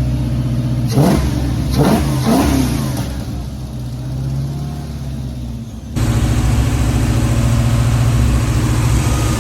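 6.0-litre LS V8 running and revved in three quick blips about a second in. It settles, and after a sudden change near the middle it runs steadily and somewhat louder.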